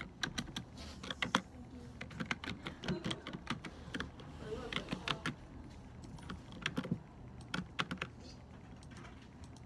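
Typing on a computer keyboard: key clicks coming in irregular runs with short pauses between them.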